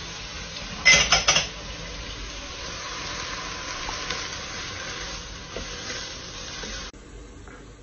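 Mushrooms and onions sizzling in a frying pan, with a short loud clatter of several sharp strokes about a second in. The sizzle cuts off suddenly near the end.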